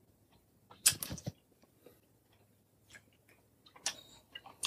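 A person chewing a caramel-filled chocolate: scattered soft mouth clicks and smacks, a few sharper ones about a second in and near the end.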